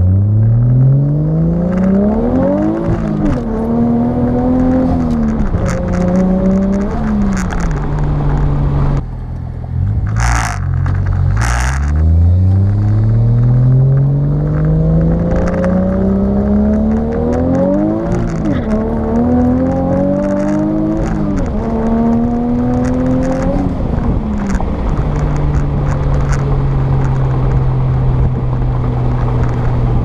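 Toyota 1JZ turbocharged straight-six heard from inside the car, pulling hard through several gears twice: the engine note rises and drops back at each upshift. Between the two pulls the throttle lifts and two short bursts of turbo flutter sound. Near the end the engine settles to a steady cruise.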